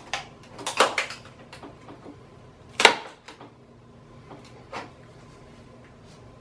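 Sharp cracks and pops of fiberglass mold halves coming unstuck as they are pried apart at the flange seam: a cluster in the first second, the loudest crack about three seconds in, and a smaller one near five seconds.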